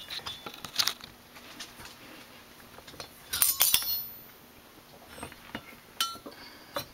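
Steel double-stack container locking cone (interbox connector) being handled and its twist-lock turned by hand: scattered metallic clinks and clicks, with a quick cluster about three and a half seconds in and another sharp click near the end.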